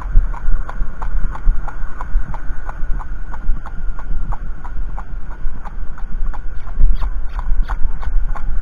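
A Thoroughbred horse's hooves clip-clopping on a tarmac road in a steady, even rhythm of about three strikes a second.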